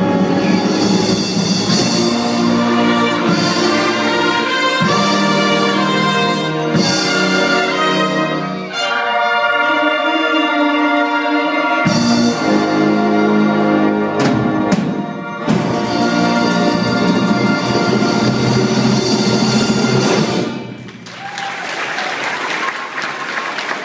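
Youth wind band of flutes, saxophones, brass and tuba playing through to the end of a piece. The music stops about three seconds before the end and applause breaks out.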